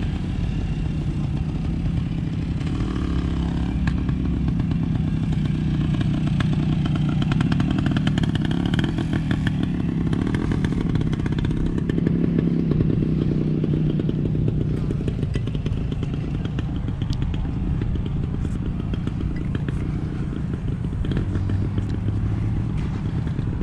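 Motorcycle engine running at low speed close by, its note rising and falling a little now and then.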